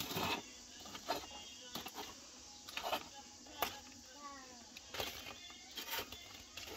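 Long metal tongs scraping and clinking through hot ash and embers in a brick hearth, raking ash over roasting corn cobs, in irregular scrapes and clicks.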